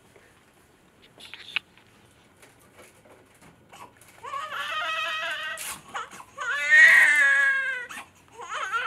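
Newborn baby crying: three wavering cries starting about four seconds in, the second the loudest.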